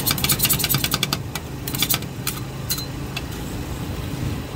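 Two metal spatulas rapidly chopping and tapping on a frozen steel ice cream roll pan, about nine sharp clicks a second for the first second, then slower, scattered taps as strawberries are mashed into the cream base. A low steady hum runs underneath.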